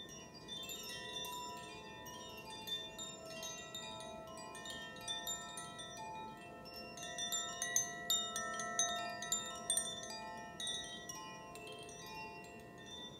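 Chimes struck in a quick, irregular tinkling cascade, many bright ringing notes overlapping over a few held lower tones, growing busiest and loudest a little past halfway.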